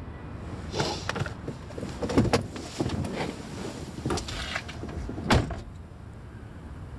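Car door clicking and thumping: a run of handle and lock clicks and knocks against a locked car door, ending in one heavy thump about five seconds in.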